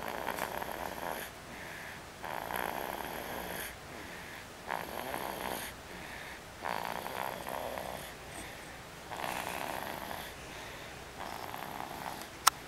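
Slow, regular snoring, one snore roughly every two seconds, each drawn out for about a second. A single sharp click comes near the end.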